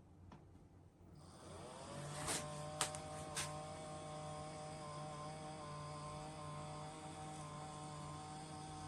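Electric standing desk's lift motors starting with a rising whine that levels off into a steady hum, with three sharp clicks shortly after they start.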